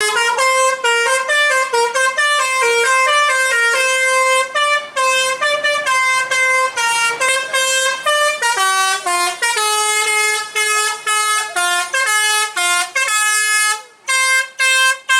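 Bus telolet horn: a multi-tone air horn on an Indonesian bus playing a quick, loud melody of stepped notes, several a second, with a short break near the end before a few more blasts.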